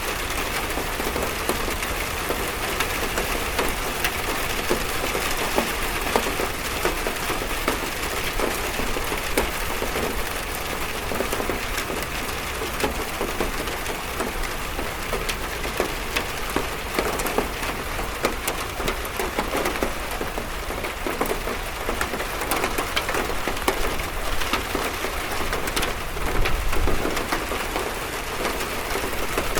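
Steady rain drumming on a metal roof, a dense patter of many small drop impacts without let-up.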